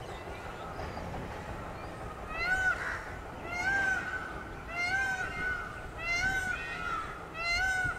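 Indian peafowl calling: a series of five short, rising-then-falling calls, about one every second and a quarter, starting a couple of seconds in.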